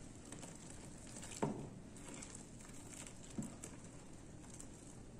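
Hot water from a stainless-steel kettle trickling and pattering faintly onto soap paste in a plastic tub, with two knocks about two seconds apart, the first the louder.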